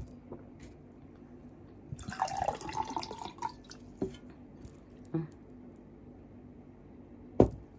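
A drinking glass of iced water: a knock as the glass is set down on the table, then about a second and a half of liquid and ice sloshing about two seconds in, a few small clinks, and another heavy knock near the end as the glass is set down again.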